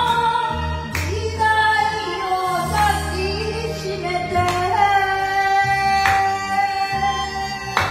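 A woman singing a Japanese song karaoke-style into a microphone over a backing track, holding one long note through the second half.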